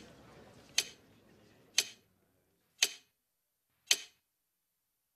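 Clock ticking, sharp single ticks about once a second. The faint background fades away partway through, and after the fourth tick the ticking stops.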